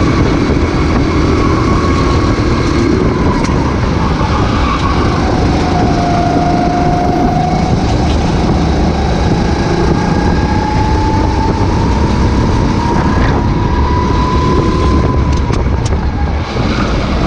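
Racing kart engine running at speed, its pitch dropping and climbing again as the revs fall and rise through the corners, over a steady rush of noise.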